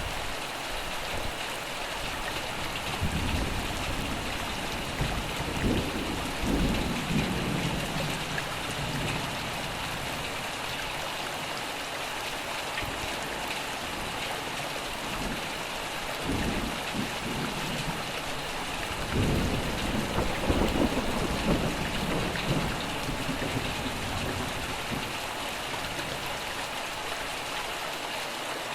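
Steady rain falling, with two long rolls of thunder rumbling low under it, one a few seconds in and the second a little past the middle, each lasting several seconds.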